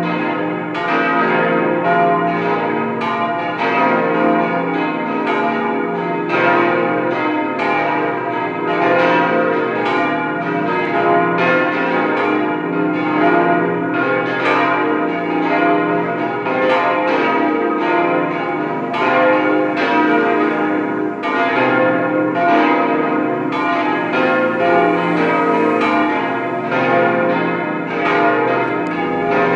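Five cast-steel church bells tuned B-flat, C, E-flat, F and A-flat (Bochumer Verein, 1954) swinging together in a full peal. Their strokes overlap continuously in an irregular pattern, several strikes a second, each bell's hum sustaining beneath the next strike.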